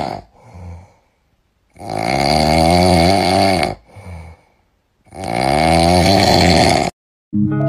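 Loud snoring: two long snores of about two seconds each, each followed by a short, quieter breath.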